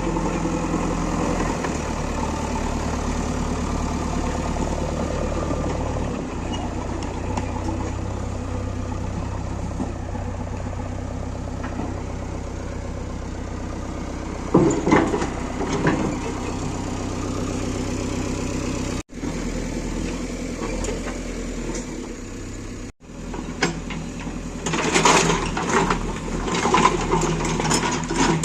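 Diesel engine running steadily. A couple of knocks come about halfway, and rapid metallic clanking and rattling takes over near the end.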